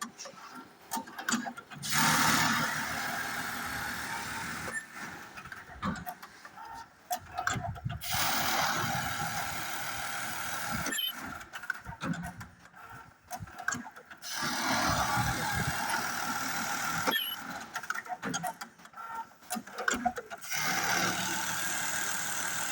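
Industrial elastic stitching machine sewing elastic into night-pant waistbands, running in four bursts of about three seconds each, with sharp clicks in the short pauses between them.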